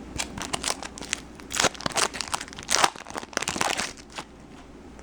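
Foil card-pack wrapper being torn open and crinkled by hand, a run of sharp crackling rustles lasting about four seconds.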